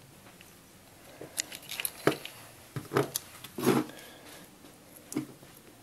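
Hands handling the wiring of an RC truck's electronic speed controller: a scatter of small plastic clicks and knocks with some rustling, the loudest about two, three and nearly four seconds in, and one more near the end.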